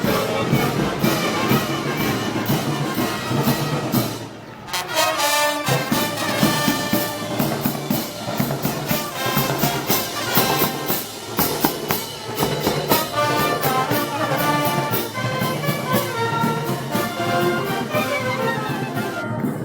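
Spanish festival brass band music: trumpets and trombones playing a march over drums and cymbals with a steady beat. It briefly thins out about four seconds in, then the full band comes back.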